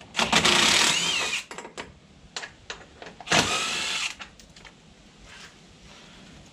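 Cordless DeWalt impact driver run in two short bursts, the first about a second long and the second a little shorter, backing out the T40 Torx bolts that hold the stock front fascia.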